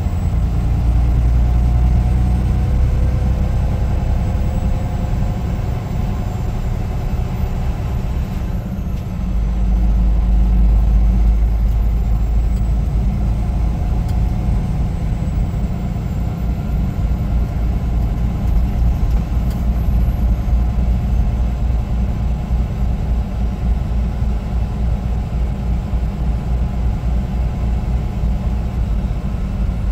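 Semi-truck running down the road: a steady low engine and road drone that dips briefly and swells again about nine seconds in.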